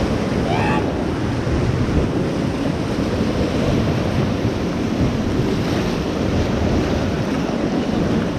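Rushing whitewater of the Beas River, a steady loud roar, with wind buffeting the microphone. A brief voice call rises about half a second in.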